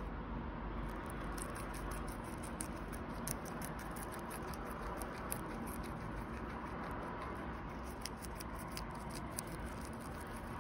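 English Crested guinea pig chewing a sprig of fresh herb leaves and stems: a rapid, irregular run of small crisp crunching clicks from about a second in, over a steady background hiss.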